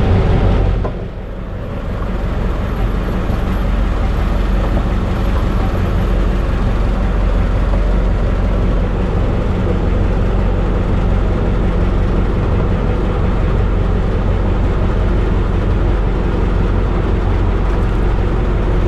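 Motorized outrigger boat's (bangka) engine running steadily under way. Its level dips briefly about a second in, then picks back up.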